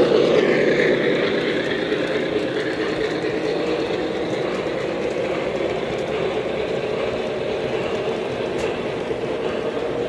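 O-gauge model freight cars rolling past on three-rail track, a steady rumble of wheels that is loudest in the first second as the tender goes by and then eases slightly.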